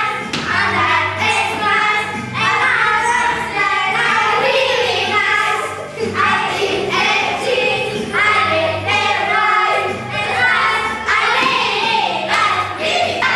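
A group of children singing a nursery rhyme together in chorus, in phrases of a second or two.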